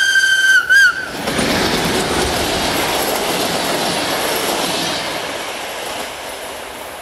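Whistle of a Romanian CFR Electroputere LDE2100 class 60 diesel-electric locomotive: one steady high blast of under a second, then a short warbling toot. Then the noise of the train's passenger coaches rushing past close by, fading after about five seconds.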